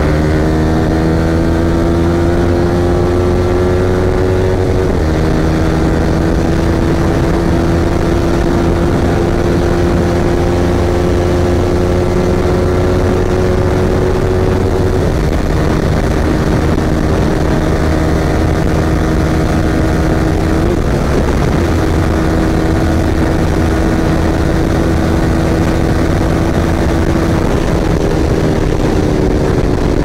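Yamaha R15M's single-cylinder engine running under way, its note climbing slowly and stepping down at gear changes about 5 and 15 seconds in, with a short dip near 21 seconds. Wind noise runs under it.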